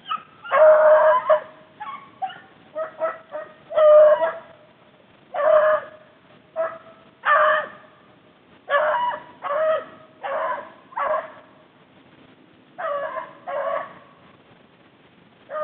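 Rabbit-hunting dogs baying on a rabbit's trail: a string of loud, drawn-out calls about a second long, mixed with shorter yelps, coming every second or so with brief gaps.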